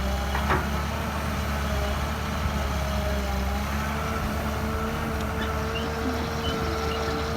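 Heavy diesel construction machinery running steadily with a deep rumble. A brief knock comes about half a second in, and a steady whine sets in about halfway through.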